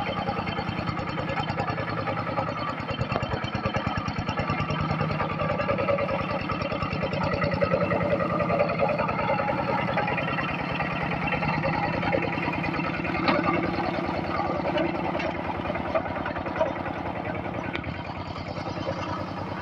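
Tractor's Kubota diesel engine running steadily with a fast, even chug of firing pulses, and a few sharp clicks about two-thirds of the way through.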